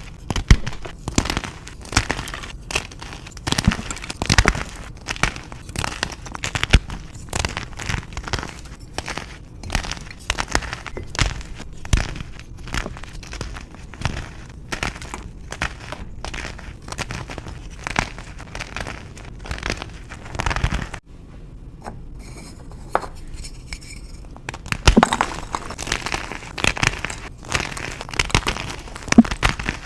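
Reformed gym chalk being crushed and crumbled: a dense run of crunches and crackles. It cuts off sharply about 21 seconds in, a few quieter seconds with faint crackling follow, then the crunching starts again.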